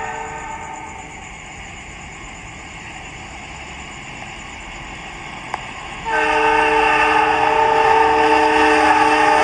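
CC 206 diesel locomotive's multi-tone horn: one blast fades out about half a second in. After a quieter stretch, a louder, long blast starts about six seconds in and is held.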